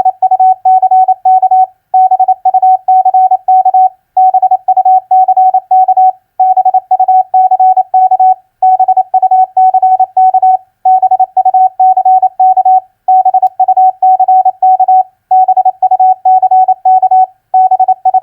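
Morse code practice tone at 28 words per minute: a single steady pitch keyed in rapid dots and dashes, sent as four-letter words in groups of about two seconds, each followed by a short pause.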